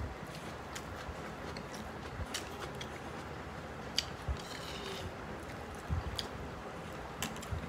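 Close eating sounds of biryani being eaten by hand: soft chewing and wet mouth noises with scattered small clicks, over a steady hiss. A sharp click about four seconds in, as a steel spoon dips into a steel bowl of raita.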